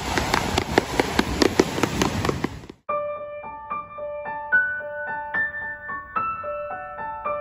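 Surf breaking on rocks with a rapid, irregular run of sharp tap-shoe clicks over it. Both cut off suddenly about a third of the way in, and a gentle electric-piano melody of single held notes follows.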